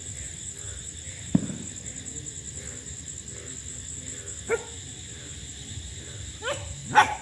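A dog giving a few short, separate barks, the loudest near the end, over the steady high chirping of crickets.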